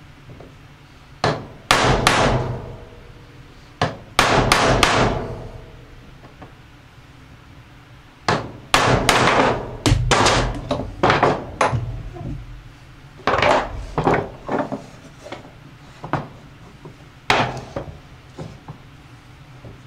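Ball-peen hammer blows on a steel bearing driver, tapping a new wheel bearing into an aluminium ATV rear hub carrier. The blows come in clusters of quick strikes with pauses between them, each one ringing briefly.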